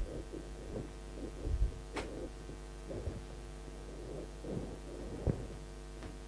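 Steady electrical mains hum with scattered soft knocks and one sharp click about two seconds in.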